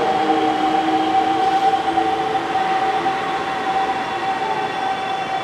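Toei 5300 series train moving along a station platform at low speed, its Mitsubishi GTO-VVVF inverter whining: one steady tone with lower tones slowly sliding down, over wheel-and-rail rumble.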